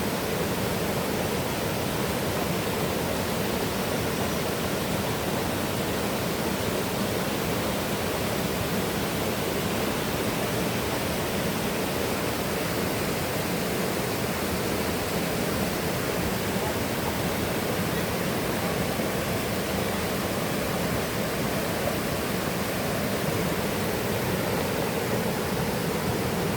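Rushing water of a mountain river and waterfall: a steady, unbroken rush.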